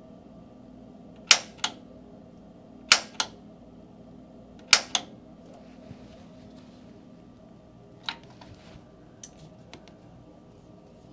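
Piezo igniter on a Rheem natural gas water heater's Resideo gas control valve clicking as it is pressed over and over to light the pilot. There are three sharp snaps about a second and a half apart, each followed by a softer click, then a weaker click about eight seconds in.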